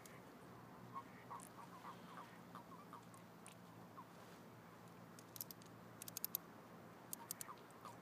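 Common toads in a mating cluster giving soft, short croaks, scattered in quick runs through the first half and again near the end, over a faint steady low hum. A few quick clusters of sharp clicks come after the middle.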